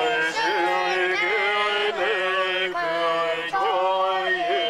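A voice chanting in long held, sung notes with short glides between them, amplified through a handheld megaphone.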